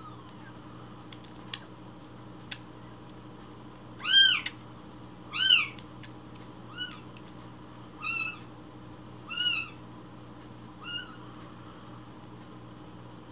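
A newborn kitten mewing six times, short rising-then-falling cries about every second and a half, the first two loudest and the later ones fainter. These are a hungry baby kitten's cries for milk. A few small sharp clicks come in the first seconds.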